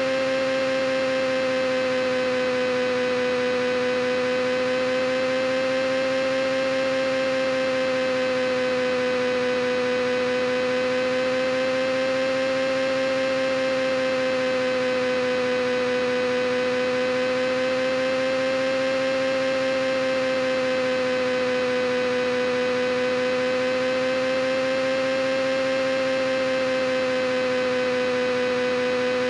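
A steady hum: one droning tone with many overtones, rising and falling slightly in pitch about every six seconds.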